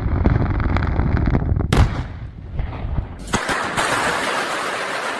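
Sequenced industrial rock-blasting charges detonating in rapid succession: a dense, crackling rumble of many quick blasts, with a heavier one a little before two seconds in. From about three seconds in a broad rushing hiss takes over and slowly fades.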